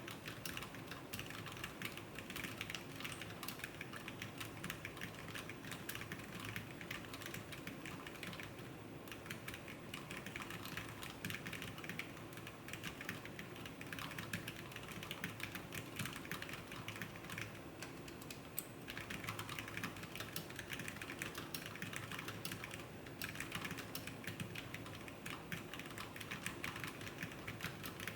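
Typing on a COUGAR VANTAR AX keyboard: rapid, continuous keystroke clacks, with a few short pauses between runs.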